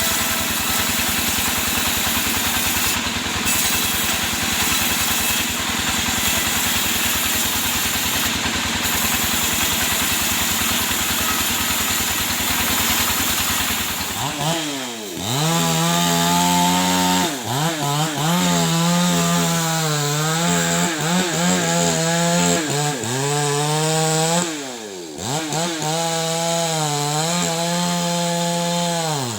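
Chainsaw running and cutting through wood. About halfway through, the sound changes to a clear engine note that dips and rises again and again as the chain bites and the engine revs back up.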